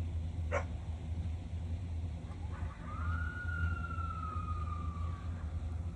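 A coyote gives one long howl that starts about two and a half seconds in and slides slowly down in pitch, over a steady low hum. A sharp click sounds about half a second in.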